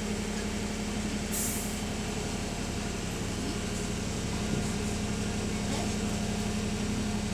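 Diesel bus engine running steadily with a low drone, heard from inside the bus, with a short hiss of released compressed air about a second and a half in.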